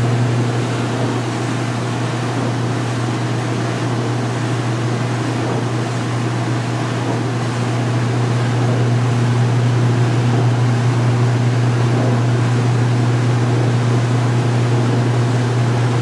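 2016 Speed Queen belt-drive top-load washer in its final spin cycle, the tub spinning at full speed to extract water from a load of towels: a steady low motor hum and whirr that grows slightly louder about halfway through.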